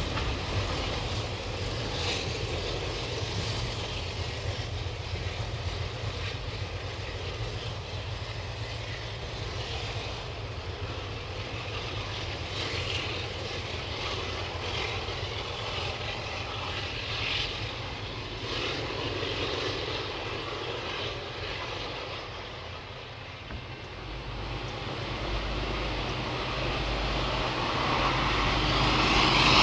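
Alco diesel locomotive engines working a passenger train: a steady diesel drone as the train pulls away, then, after a dip in level, the engines growing steadily louder as the locomotives approach.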